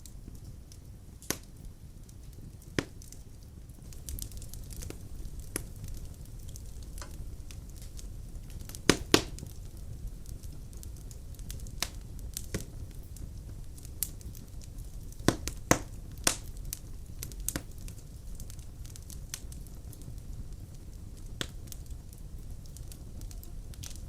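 Wood fire crackling in a fireplace: a steady low rumble of burning with scattered sharp pops, the loudest pair about nine seconds in and a quick run of pops around the middle.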